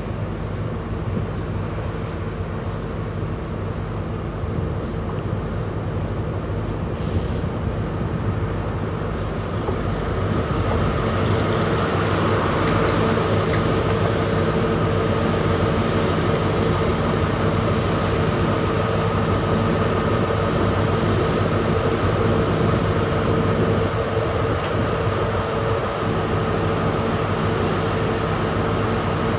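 Class 43 HST diesel power car running as the train draws slowly into the platform, its engine note and a steady whine growing louder until it comes alongside about twelve seconds in, then holding steady.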